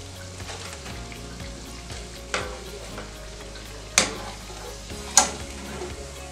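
Saltfish fritters frying in hot oil: a steady crackling sizzle. Three sharp metal clicks cut through it, about two and a half, four and five seconds in, as the wire skimmer knocks against the pan.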